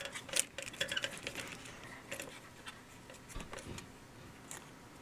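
Faint clicks and rattles of plastic wiring-harness connectors and wires being handled, thickest in the first couple of seconds, then a few scattered clicks.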